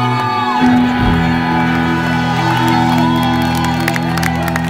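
Live rock band's closing chord held and ringing on amplified electric guitars, while the crowd whoops and cheers, with clapping joining in near the end.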